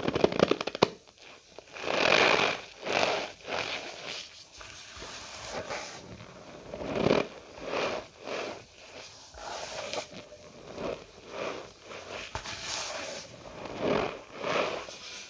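Cornstarch powder pressed and squeezed by hand, squeaking and crunching in irregular strokes about once a second, with a rapid crackling squeak in the first second.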